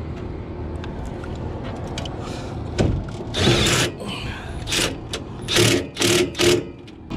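Cordless drill driving screws into a rooftop gas unit's sheet-metal cabinet, running in several short bursts that start about three seconds in.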